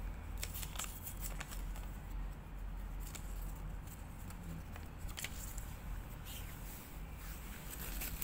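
Paper cards handled by hand: scattered soft crinkles and clicks as they are picked up and shuffled, over a faint low hum.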